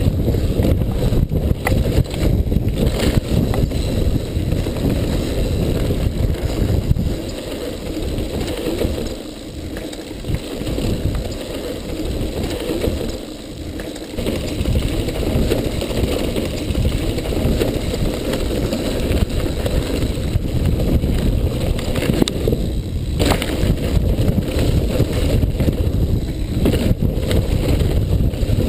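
Mountain bike riding fast down a dirt trail: a constant low rumble of tyres over rough ground, with the bike rattling and clattering and wind buffeting the microphone. It quietens for a few seconds partway through, then picks up again.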